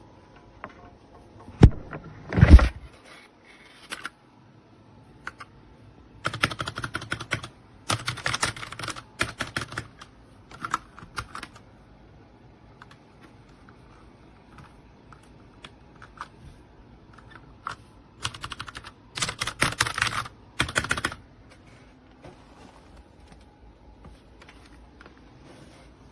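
Typing on a Royal Kludge RK61 60% mechanical keyboard: quick runs of sharp key clicks in two main flurries, with two loud thumps near the start.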